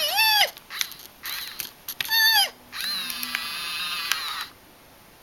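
A pet animal yawning aloud: two short, high squeaky calls that rise and fall, then a longer, rougher drawn-out call that stops about four and a half seconds in.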